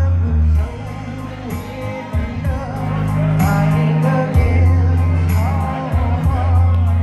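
A woman singing into a microphone over a recorded backing track with a heavy bass line and a steady hi-hat beat, amplified through a bar's PA.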